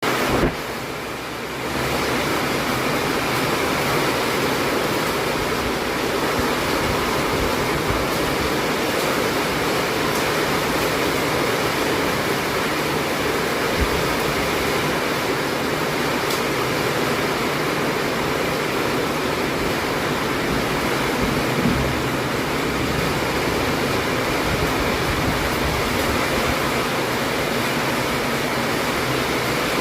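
Heavy rain falling steadily as a dense, even hiss, a little quieter in the first second or two.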